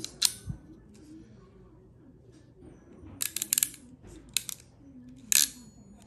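Sharp metal clicks from a quick-change ratchet hand crimper being worked and its jaws handled: one click just after the start, a quick run of clicks about three seconds in, then single clicks, the loudest near the end.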